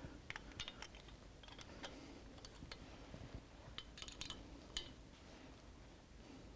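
Faint, scattered light metallic clicks of two 7/16 inch open-end wrenches working a Harley-Davidson Twin Cam pushrod adjuster nut as it is tightened, with a small cluster of clicks about four seconds in.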